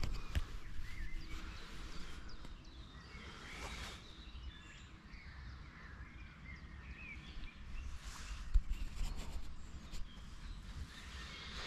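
Scattered faint bird chirps over a low steady rumble, with a brief knock about eight and a half seconds in.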